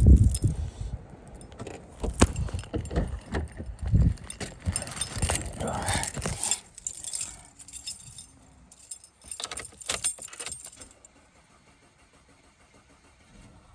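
Car keys jangling and clattering in hand for the first six or so seconds, then a few more clicks and knocks about ten seconds in before it goes quiet.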